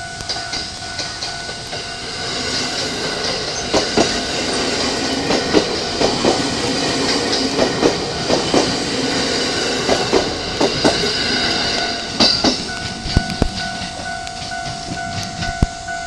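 Four-car JR E217 series electric train passing, its wheels clicking over rail joints and points in an uneven string as the cars go by. A level-crossing warning bell rings as a steady tone. It is masked while the train passes and comes back clearly about three quarters of the way through.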